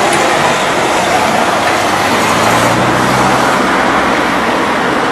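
Steady road traffic noise, with a vehicle engine humming through the middle for a couple of seconds.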